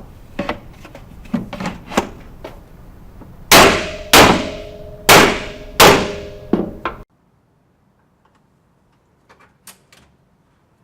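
A metal drawer is struck as its bottom panel is knocked into place. A few light knocks lead into four loud clanging strikes, each leaving a ringing tone, and then the sound cuts off abruptly, leaving only a couple of faint clicks.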